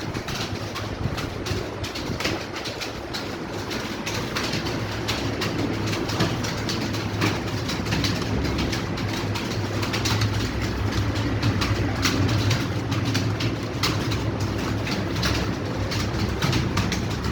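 Several computer keyboards clattering at once as students type fast, a dense, continuous patter of keystrokes over a low steady hum.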